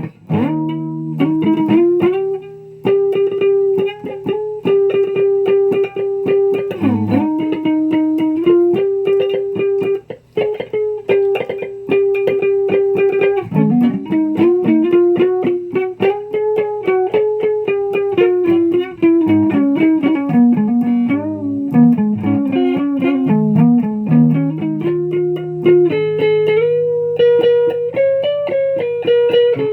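Guitar music: a picked melody that steps and bends up and down over a steady low held note.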